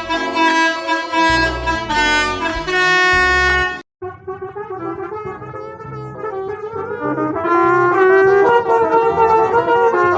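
Electronically edited bus horn sound effects played as short tunes. The first is a horn-like tone stepping through several notes over a low thudding beat, and it cuts off suddenly about four seconds in. After a brief gap a second wavering horn variation starts and gets louder about two-thirds of the way through.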